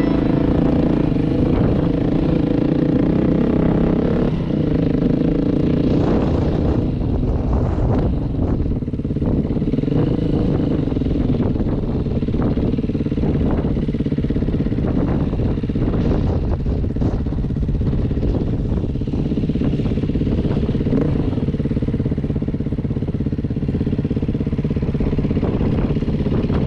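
Enduro motorcycle engine running steadily under load on a rough mountain track, with scattered knocks and clatter.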